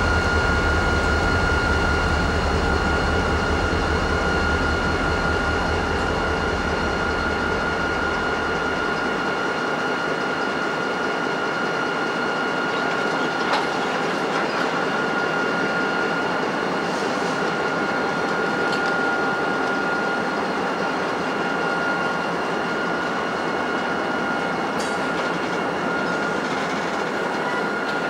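Diesel locomotives, among them an EMD GP38-2, rolling slowly past with a steady engine rumble and a continuous high-pitched whine. The deep part of the rumble drops away about a third of the way through.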